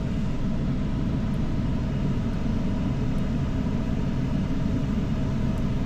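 A 2014 Ram 1500's pushrod V8 idling steadily with a misfire on cylinder 3, which the mechanic puts down to a valve that is not opening. He suspects a damaged rocker arm or pushrod and a worn camshaft.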